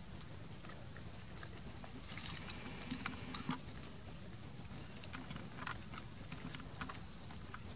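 Outdoor background around a group of macaques: a faint steady high-pitched hum over a low haze, with scattered light clicks and rustles, a cluster of them from about two to four seconds in.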